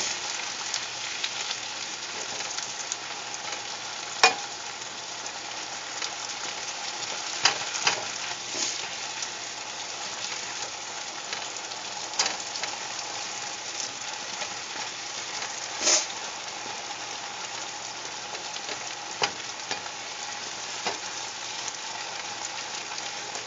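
Asparagus sizzling and hissing in a hot oiled frying pan with a little water just added, steaming it. A spatula scrapes and knocks against the pan every few seconds as it is stirred.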